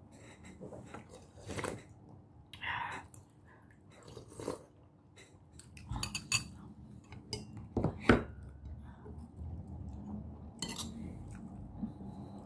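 Metal spoon clinking and scraping against a soup bowl and plate, in scattered sharp clicks and knocks, during a meal of fish soup.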